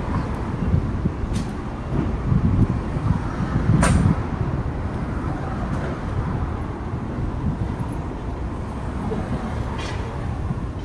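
Street traffic: a steady low rumble of cars passing, with one brief sharp sound about four seconds in.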